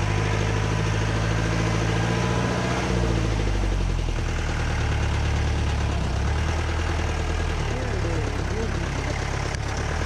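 Jeep engine running on a dirt track; its note drops about three seconds in, then runs steady.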